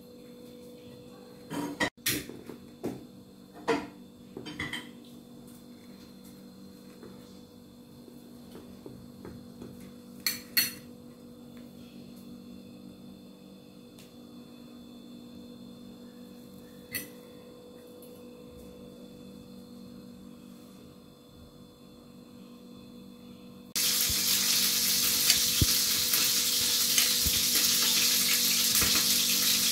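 A few clinks of dishes and utensils over a faint steady hum, then near the end a loud frying sizzle starts abruptly: butter melting in a hot pan.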